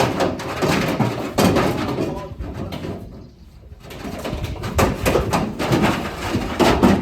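Pigs grunting in a run of short, rough bursts, with a brief lull partway through.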